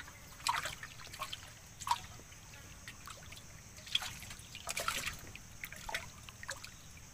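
A wooden paddle dipping and stirring in calm river water beside a small boat, making irregular small splashes and trickling drips.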